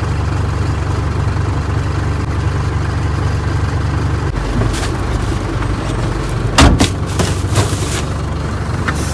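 Unimog diesel engine idling steadily, heard from inside the cab, its low hum shifting slightly about four seconds in. A few sharp knocks and a thump about two-thirds of the way through as the driver's door opens and he climbs into the seat.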